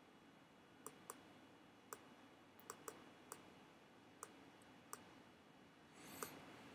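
Computer mouse clicking faintly, single and double clicks scattered every half second or so. A brief soft rustle near the end, over a quiet room hiss.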